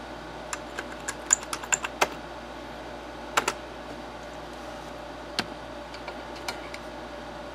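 Computer keyboard keys being pressed: a quick run of about eight clicks, a close pair a little over a second later, then a few scattered single taps, over a steady faint hum.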